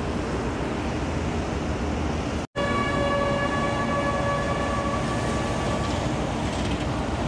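Wind and harbour noise, a brief dropout, then a bugle sounds one long held note for about three seconds: the call that opens the 0800 ensign hoisting.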